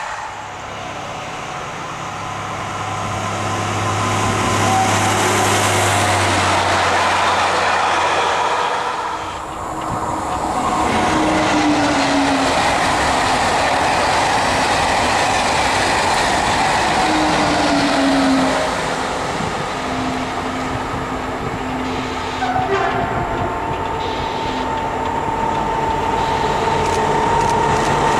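Trains running past at close range: a steady train noise with a low hum, then after a cut about nine seconds in, a TGV trainset rushing past with falling pitch tones, followed by an engineering train hauled by several locomotives, with a steady tone coming in about three-quarters of the way through.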